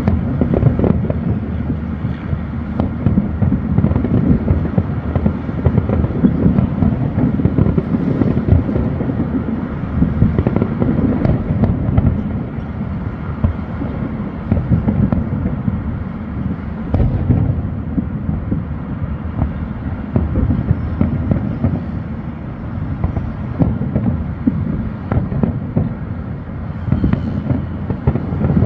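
Fireworks display heard from afar: a dense, continuous barrage of booms and crackles, the low thuds loudest.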